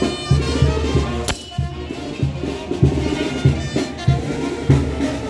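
Brass band music with a steady bass beat.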